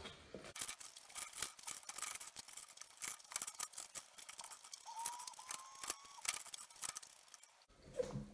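A utensil scraping and scooping at the inside of a watermelon rind: quick, irregular scratchy strokes as the last red flesh is dug out. The scraping breaks off about a second before the end.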